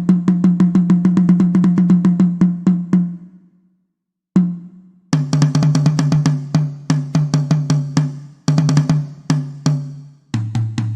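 Sampled drum-kit sounds from a karaoke drum-kit add-on, playing fast even runs of pitched drum strokes. The first run fades out after about three seconds. A single hit follows, then more runs broken by short gaps, and near the end the drum pitch drops lower.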